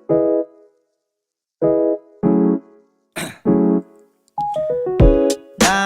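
Background music: keyboard chords struck in short pairs with pauses between them, then a busier run of notes with a deep bass coming in about four and a half seconds in.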